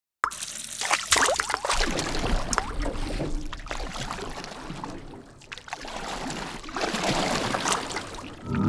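Water sloshing and splashing sound effect, starting abruptly a moment in after silence, a dense, irregular wash of splashes that eases off briefly about five seconds in and then builds again.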